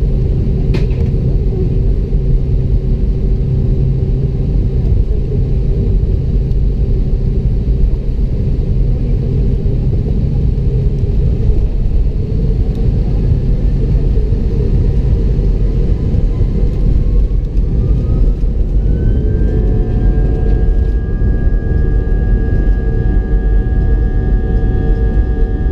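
Airbus A319-100 jet engines heard from inside the cabin, spooling up for takeoff: a heavy steady rumble, with a whine that rises about two-thirds of the way in and then holds steady at takeoff thrust. A brief click less than a second in.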